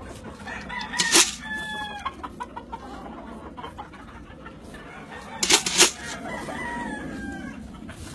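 Kelso gamefowl roosters crowing and clucking, two crows with slightly falling pitch, the first about a second and a half in and the second after six seconds. Two loud, sharp noises, about a second in and again around five and a half seconds, are the loudest sounds.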